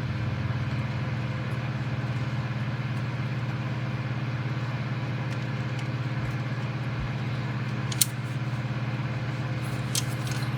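A steady low mechanical hum, with a sharp click about eight seconds in and a fainter click near the end.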